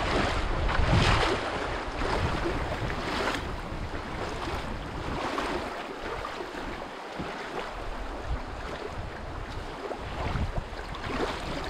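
Wind buffeting the microphone over the rush of fast river water around a moving canoe, swelling in gusts, loudest about a second in.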